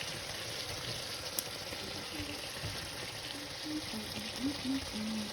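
Steak and chopped onion frying in melted butter in a pan, a steady sizzle.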